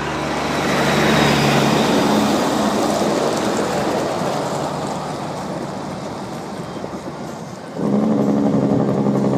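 A semi truck going by on the highway, its engine and tyres growing louder in the first second or two and then slowly fading. Near the end a steady pitched sound with several tones starts suddenly and lasts about two seconds.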